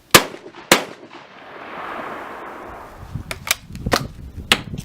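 Pardus DE 12-gauge side-by-side shotgun firing both barrels, two shots about half a second apart, the loudest sounds. A few seconds later comes a quick run of sharp metallic clicks as the action is broken open, the auto ejectors kick out the spent shells and the gun is handled.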